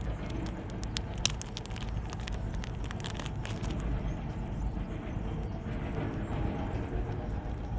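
Crinkling and clicking of a small plastic zip bag and plastic spray caps being handled, busiest in the first half, over a steady low outdoor rumble.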